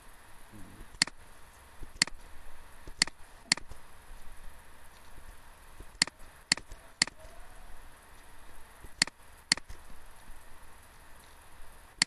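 Computer mouse button clicking: about nine sharp single clicks, some in pairs about half a second apart, over a faint steady hiss.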